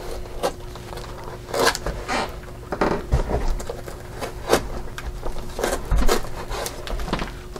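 Hands handling a taped cardboard shipping box, with scattered short scrapes, rubs and small knocks against the cardboard.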